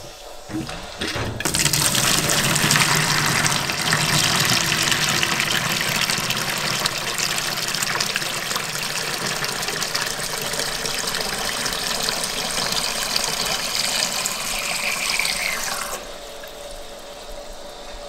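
Water from a water heater's drain valve, pushed by mains pressure, gushing out of a garden hose into a plastic bucket and flushing loose sediment from the bottom of the tank. The rushing and splashing starts about a second and a half in and grows quieter near the end, once the bucket has filled over the hose end.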